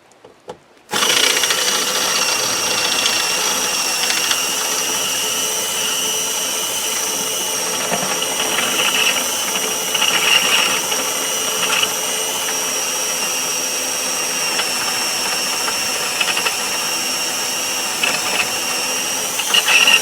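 Electric drill starting about a second in and running steadily as it drills out the loose, spinning insert of a Land Rover Defender door handle, with a few harsher bursts as the bit bites.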